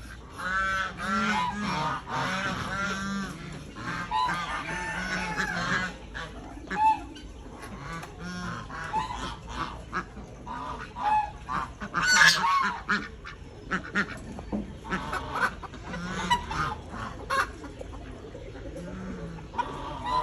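Domestic poultry calling, many short calls repeated in quick runs, with one sharper, louder call about twelve seconds in.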